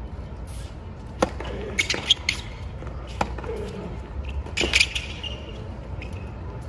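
A tennis rally on a hard court: sharp pops of rackets striking the ball and the ball bouncing, a second or two apart, with brief shoe squeaks and scuffs between, over steady stadium crowd noise.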